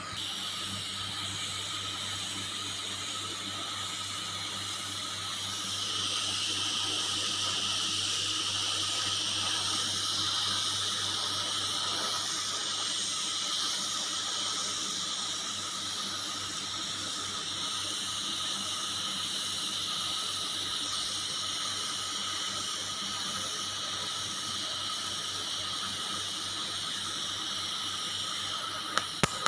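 TIG welding arc on a thin stainless steel pipe joint, a steady hiss with a low hum under it, louder from about six seconds in. Two sharp clicks just before the end.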